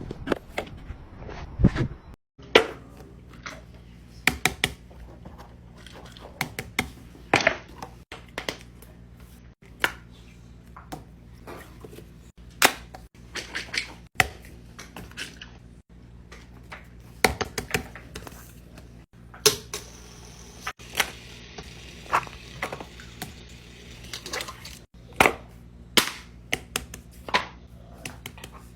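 Fidget toys being pressed and popped by hand: many sharp, irregular pops and clicks over a steady low hum, with a soft hiss for a few seconds past the middle.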